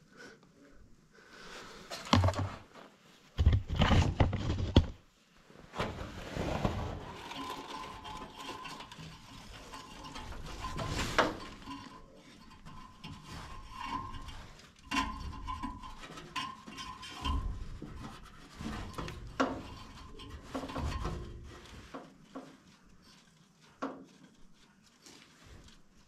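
Hands working inside a gas furnace cabinet, cleaning out clogged condensation from around the condensate trap: irregular rubbing and scraping with knocks against sheet metal.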